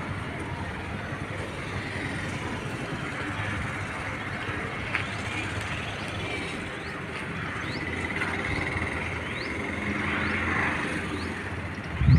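Steady outdoor background hum of vehicles, with a number of short, rising bird chirps from about five seconds in.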